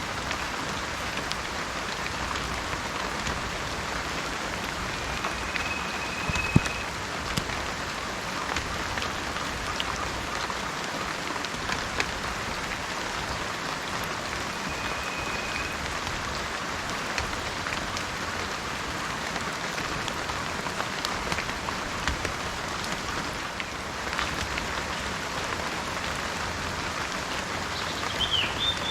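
Steady rain falling, an even hiss with scattered drops ticking. A few short high whistles come through it, and a brief wavering chirp near the end.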